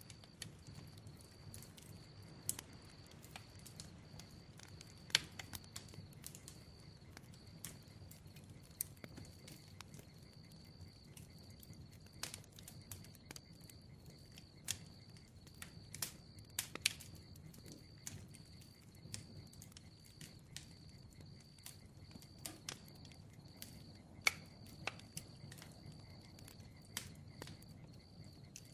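Bonfire crackling: a low steady rumble of flames with sharp, irregular pops and snaps of burning wood, a few louder than the rest. A steady high cricket trill runs underneath.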